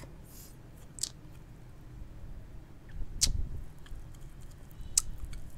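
Three sharp little clicks about two seconds apart, and a few fainter ticks, from brittle baking-soda sugar candy (dalgona) being picked at with a needle and held to the mouth.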